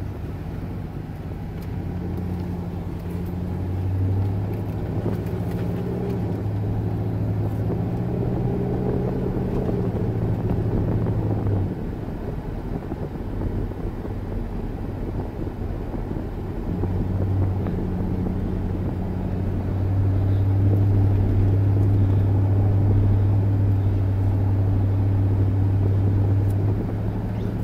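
Inside the cab of a 2007 Dodge Durango on the move: a steady low engine and road drone. It builds about four seconds in, eases off around twelve seconds and swells again from about seventeen seconds.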